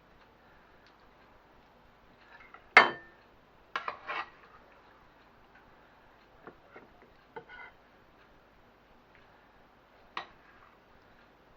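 Serving utensil clinking and scraping against the baking dish and pasta bowl as a portion of pasta bake is dished out. There is one sharp ringing clink about three seconds in, a couple more knocks just after, and a few softer clinks later on.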